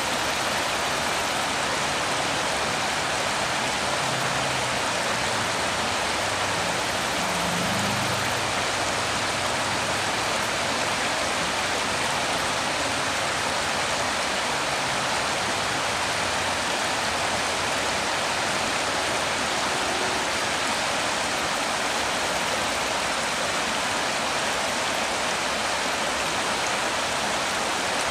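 Shallow river water rushing steadily over rocks: an even, unbroken flowing noise.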